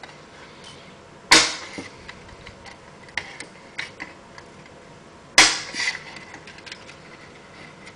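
Two sharp plastic snaps about four seconds apart as an RB411 router circuit board is pressed down onto the plastic mounting posts of a Mikropoynt enclosure. Lighter clicks of the board and plastic being handled come between them.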